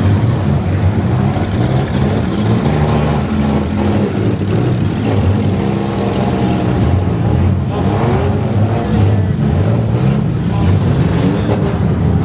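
Several demolition-derby minivan engines running together, revving up and down.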